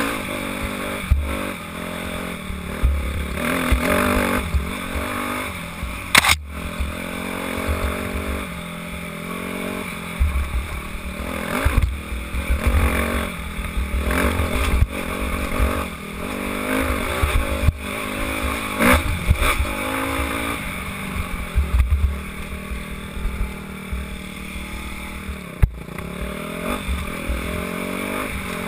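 Dirt bike engine revving up and down as it is ridden over a rough, rocky trail, with knocks and rattles from the bike and wind rumble on the on-board microphone. There are sharp knocks about six seconds in and again near the end.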